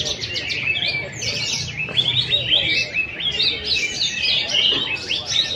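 Many competing songbirds singing at once, a dense chorus of overlapping chirps, trills and whistles with no break.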